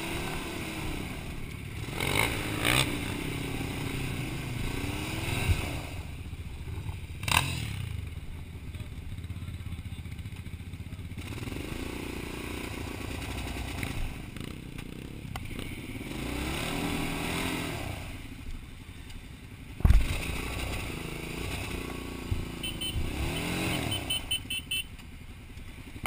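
Quad bike engine revving up and down in repeated bursts, blipping the throttle while riding slowly over rough ground. Occasional knocks and clatter come from the machine over the ruts, with one loud thump about twenty seconds in.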